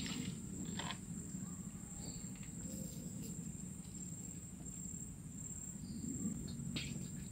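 Steady high-pitched insect chorus over a low rumble, with a couple of faint clicks.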